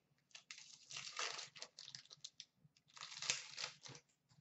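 Foil wrapper of a 2015-16 Upper Deck Series 2 hockey card pack being torn open and crinkled by hand, in two rustling bursts, the second about three seconds in.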